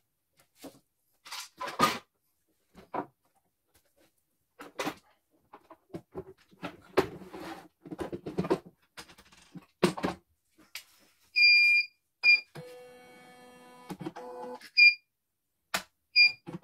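Clicks and knocks of parts being handled on an opened-up CNY E900 embroidery machine, then its control panel beeping a few times as keys are pressed, with a short steady motor whir from the machine for about two seconds between the beeps.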